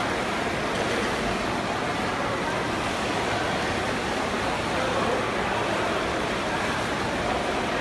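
Steady wash of splashing water from several swimmers racing in an indoor pool.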